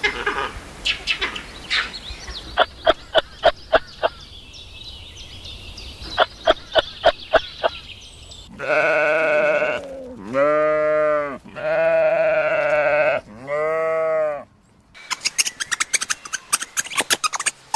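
Quick runs of sharp clicks for the first several seconds, then four long bleats, each about a second or more, their pitch arching up and falling away. Rapid clicking starts again near the end.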